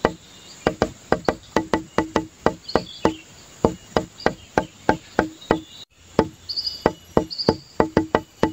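Background music with a rapid, wood-block-like percussive beat of about four clicks a second, with short high chirps now and then. The track briefly drops out about six seconds in.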